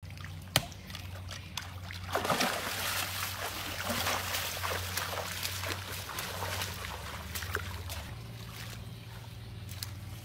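Water splashing and sloshing, with scattered clicks and a sharp knock about half a second in, over a steady low hum.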